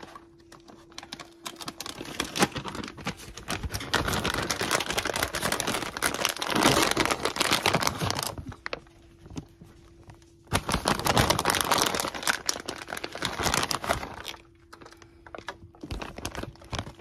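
Plastic bag of shredded mozzarella crinkling and crackling as it is handled and shaken out. The sound comes in two long spells with a short pause between.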